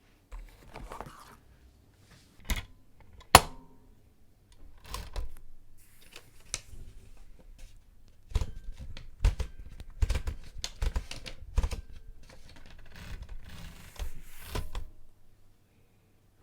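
Irregular clicking and tapping of keyboard keys, with a single louder, sharp click about three seconds in.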